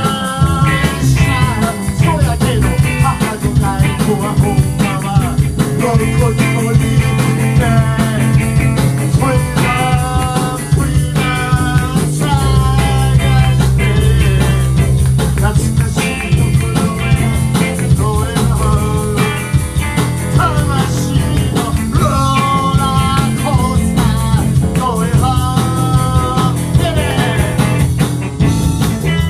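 Live rock band playing loudly: a man singing at the microphone over electric guitar and a drum kit.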